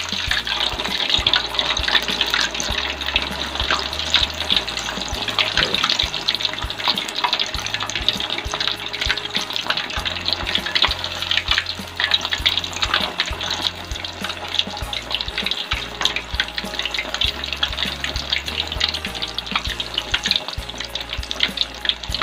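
Egg-coated tapioca cilor skewers deep-frying in hot oil in a wok: a steady crackling sizzle with many small pops.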